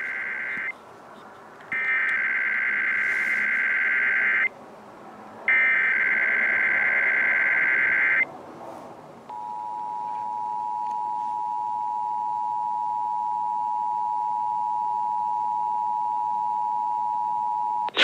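Emergency Alert System test heard over an FM radio. First come the end of one SAME digital header burst and then two more full bursts, each a harsh, warbling data screech about three seconds long with a second's gap between them. About nine seconds in, the steady two-tone EAS attention signal starts and holds.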